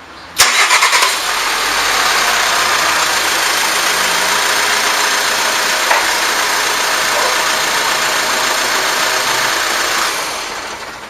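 VW Amarok pickup's engine cranked by the starter and catching about half a second in, then running steadily at idle before dying away near the end.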